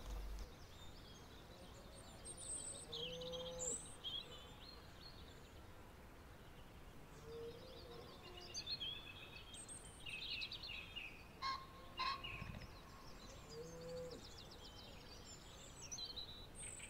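Faint mixed birdsong in open country: many quick, high chirps and trills, with a lower call about three times.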